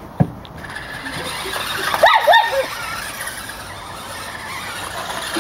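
Remote-control toy stunt car's electric motor running at speed, with a cluster of short, high, sweeping squeals about two seconds in.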